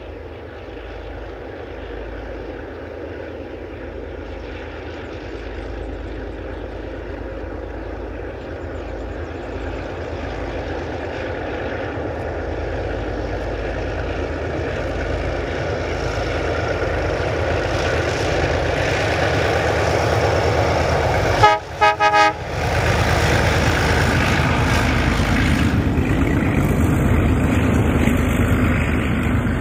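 A pair of NSW 48 class Alco diesel-electric locomotives hauling a train of hopper wagons: the engine sound builds steadily as they approach. Roughly two-thirds of the way through comes a brief, sharp horn toot. Then there is a loud low rumble as the locomotives pass close and the wagons roll by.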